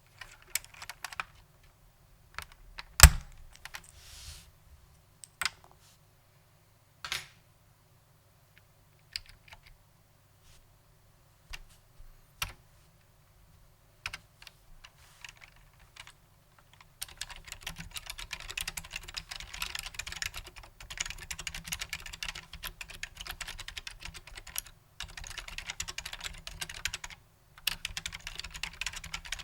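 Matias Quiet Pro mechanical keyboard with Alps-clone switches being typed on. At first come scattered single key presses, one much louder strike about three seconds in. From a little past halfway it becomes steady fast typing, broken by two brief pauses near the end.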